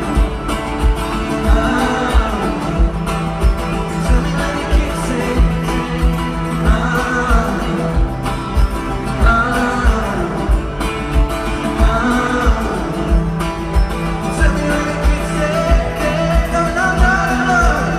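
Live arena music: a guitar-driven groove with a steady low beat about twice a second, and singing drawn out in long, sliding notes over it.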